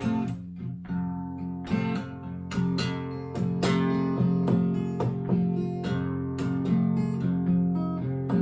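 Acoustic guitar playing a blues instrumental break, picked notes and strums over a steady bass line.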